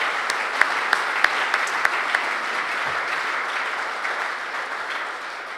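Audience applauding: many hands clapping at once, with a few single sharp claps standing out in the first two seconds, fading near the end.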